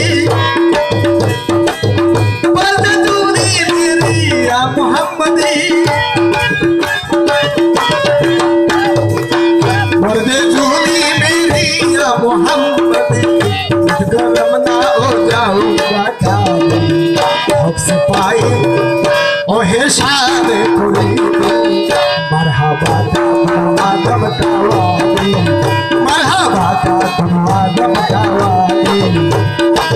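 Tabla and harmonium playing a qawwali accompaniment: a steady, lively tabla rhythm with deep bass-drum strokes under a harmonium drone and melody.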